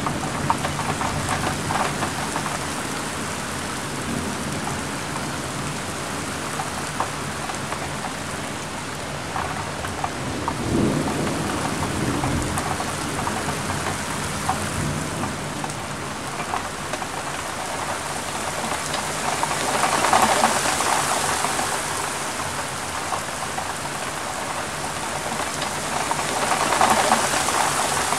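Heavy rain falling steadily, with scattered drops ticking close by and a low rumble of thunder about eleven seconds in. The rain swells louder twice, about twenty and twenty-seven seconds in.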